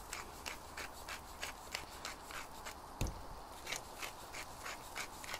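Spice being shaken from a container over raw lamb shanks: faint, light shaking strokes a few times a second, with one low thump about three seconds in.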